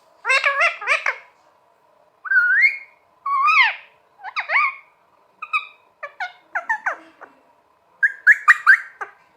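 Pet green parrot calling: a string of short whistled and squawky calls with wavering pitch, coming in clusters about every second, with quick runs of notes at the start and near the end.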